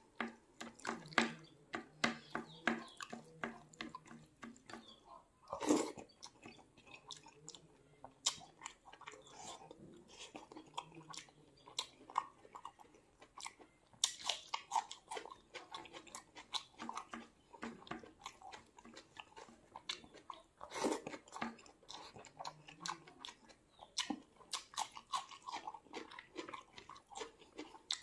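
Close-miked eating by hand: wet chewing and mouth smacks of rice with dal curry, in quick irregular clicks. A few louder crisp crunches stand out, one of them a bite of raw red onion about halfway through.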